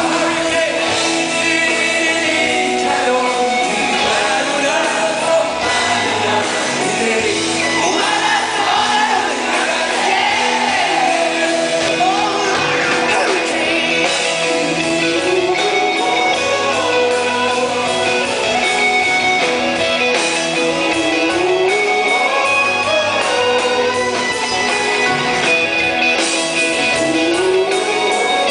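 Live rock band in a large hall: a male lead vocal, sung out at times close to shouting, over electric guitars.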